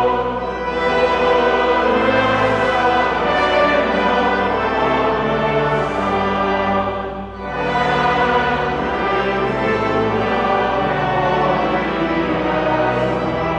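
Music of brass instruments playing full, held chords, with a short dip in loudness about seven seconds in.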